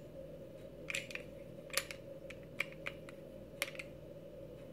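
Faint, irregular clicks and ticks of a Smith & Wesson SD40VE pistol's stainless slide and polymer frame parts being handled during field stripping, about half a dozen over several seconds.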